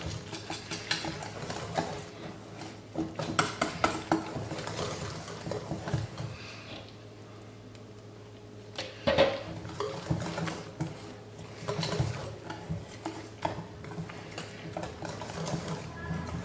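Wire whisk beating a flour-and-buttermilk batter in a stainless steel bowl, its wires clicking and scraping against the metal. There is a brief lull about halfway through, then the whisking resumes.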